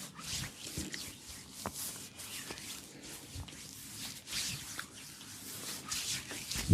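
Massage strokes rubbing and sliding over skin: a run of soft swishing friction sounds with scattered small clicks, and a sharp slap or knock right at the end.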